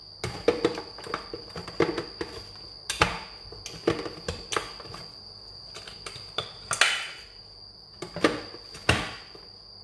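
Blender jar being pressed and twisted down onto its stainless-steel motor base: a series of irregular clunks and clatters, about nine of them, with no motor running. The jar is stubborn and will not lock into place.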